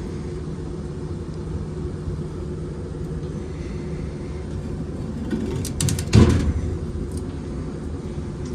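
Rooftop HVAC fan unit running with a steady low hum. About six seconds in, a quick run of sharp clicks ends in a heavy thump.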